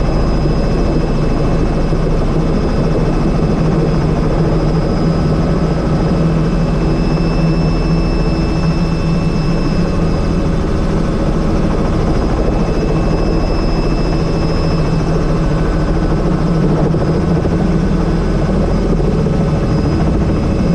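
Helicopter running steadily: rotor and turbine engine noise with a steady high-pitched whine over it.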